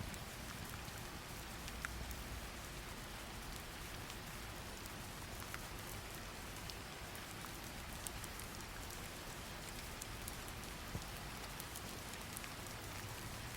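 Steady rain: an even hiss of rainfall with scattered small drop ticks.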